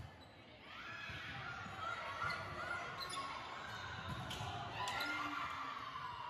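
Spectators murmuring in a large hall, with a few short sharp knocks from play on the court, such as a ball bouncing or players' impacts.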